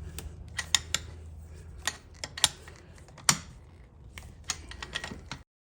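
Hand tools and small metal engine parts clicking and clinking irregularly during an ATV engine teardown, over a steady low hum. All sound cuts off abruptly near the end.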